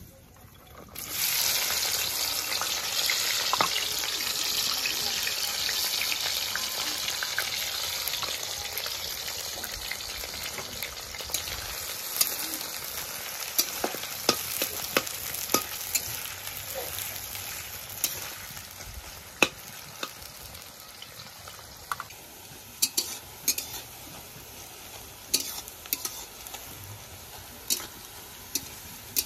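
Sliced onions dropped into hot oil in a metal kadai, sizzling loudly all at once about a second in; the frying hiss slowly dies down as they cook. From about the middle on, a metal spatula clicks and scrapes against the pan as the onions are stirred.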